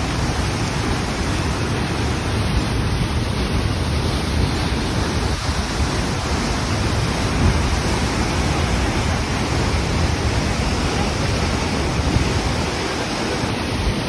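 Steady rushing of whitewater from a fast mountain river tumbling through a rocky gorge below, with a fluctuating low rumble underneath.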